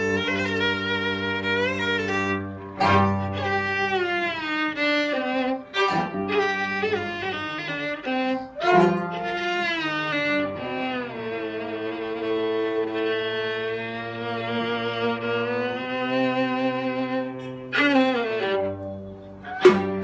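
Background music led by bowed strings, violin and cello, playing long held, gliding notes, with one sustained note held for several seconds near the middle.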